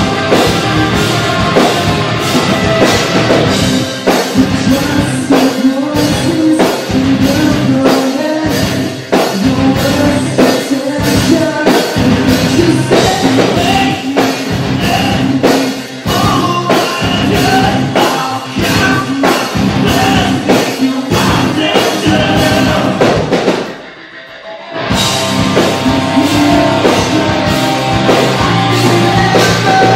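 Alt-metal band playing live, heard from the audience: a drum kit keeping a steady driving beat under electric guitars and bass, with singing. About 24 seconds in the band drops out for about a second, then crashes back in.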